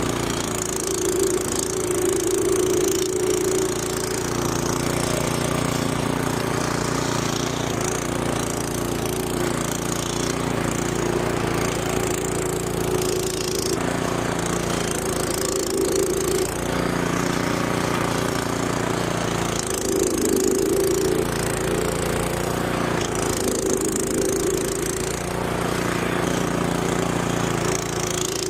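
Gas snowblower engine running steadily at working speed, its note wavering a few times.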